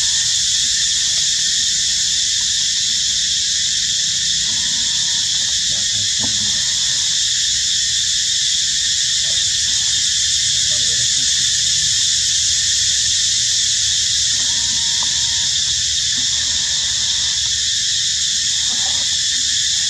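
Steady, loud, high-pitched drone of an insect chorus in the trees, with a few faint short animal calls now and then.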